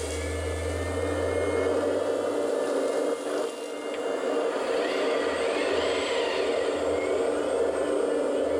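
Electric hydraulic pump of a 1/14-scale Kabolite 970 RC hydraulic excavator whirring steadily as the boom and bucket move and the upper body swings. Gravel spills from the bucket at the very start, and the whine rises and falls in pitch about halfway through.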